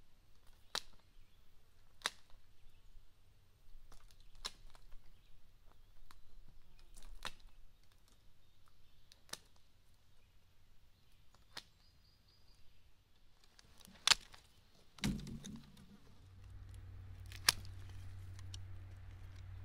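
Wooden-handled loppers snipping through thin dry sapling stems, a sharp snap with each cut every second or two. A dull thump comes about 15 seconds in, and a low steady hum runs through the last few seconds.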